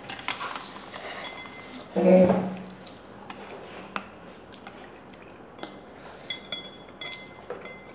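Chopsticks clicking and scraping against a ceramic noodle bowl: a string of light clinks, some ringing briefly. There is a short vocal sound from the eater about two seconds in.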